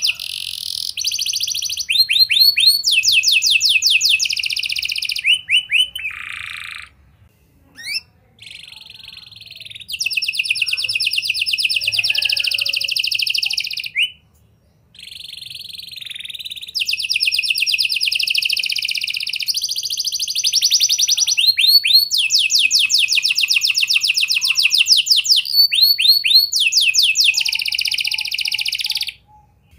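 Red-factor domestic canary singing: long phrases of rapidly repeated notes and rolled trills, breaking off briefly about seven seconds in and again around fourteen seconds.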